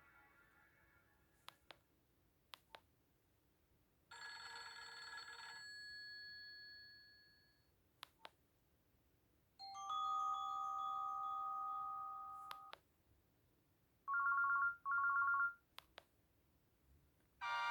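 Nokia C3 mobile phone playing short alert tones one after another through its speaker: a chime about four seconds in that fades away, a longer steady tone about ten seconds in, then a quick double beep. Faint clicks fall between the tones.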